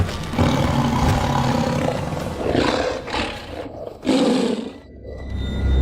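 A tiger roaring in three loud, rough bouts, over background music.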